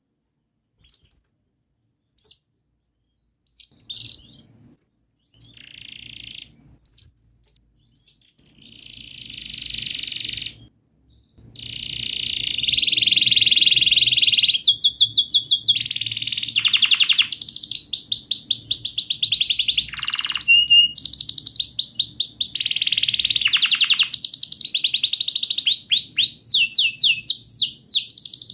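Domestic canary singing: a few scattered chirps and short phrases at first, then from about twelve seconds in a long unbroken song of rolls and fast trills of repeated notes.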